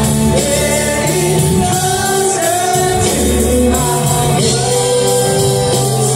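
Rock band playing live, with voices singing long, held notes over guitar, bass and drums, heard from the audience seats of a large hall through a phone's microphone.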